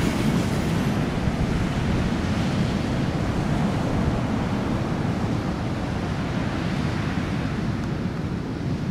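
Heavy ocean surf breaking, a steady rushing wash of water with wind rumbling on the microphone.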